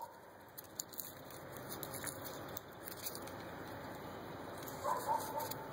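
Faint outdoor ambience with light scattered ticks and rustles, and one short pitched call about five seconds in.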